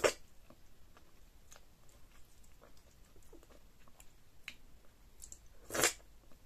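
Close-up mouth sounds of eating slimy, stretchy ogbono-okra soup by hand: a short loud slurp as it begins and another near the end, with soft wet chewing and lip smacks between.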